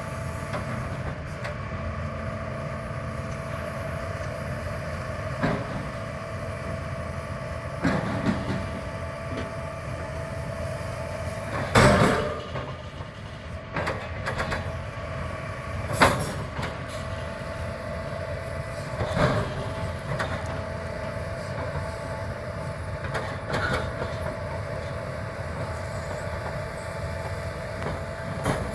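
Hitachi 350-size hydraulic excavator running steadily with a constant tone over the engine noise, its grapple handling steel antenna tube sections that give scattered metal clanks and knocks. The loudest clank comes about twelve seconds in and another sharp one about four seconds later.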